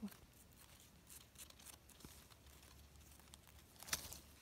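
Very faint, scattered rustling and crackling of dry leaf litter, with a slightly louder rustle about four seconds in.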